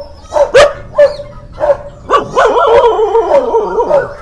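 Dogs barking in short, sharp barks about twice a second. About two seconds in, this gives way to a stretch of overlapping yelps and whines.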